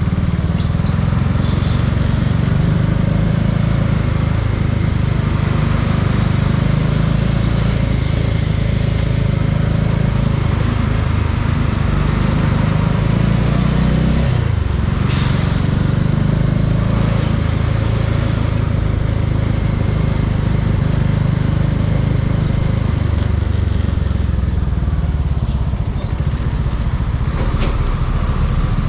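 Bajaj Dominar 400's single-cylinder engine running steadily under way, with wind and road noise. A short rushing hiss comes about halfway through.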